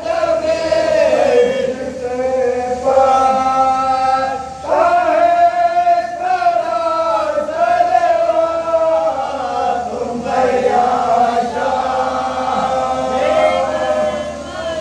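A group of men chanting a Shia salwat (devotional blessing recitation) in unison, in long held, sliding notes with brief breaks between phrases.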